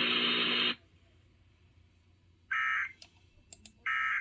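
EAS end-of-message data bursts: two short, shrill digital screeches about a second and a half apart. They follow a loud steady buzz that cuts off just under a second in, and they mark the end of the relayed alert.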